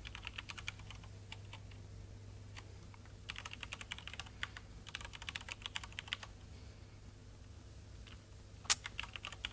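Typing on a laptop keyboard: quick runs of keystrokes with short pauses between them, and one sharper click near the end. A steady low hum runs underneath.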